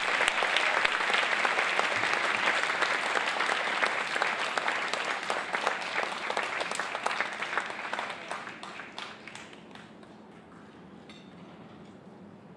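Audience applauding, dense at first, then thinning to scattered claps and dying away about ten seconds in.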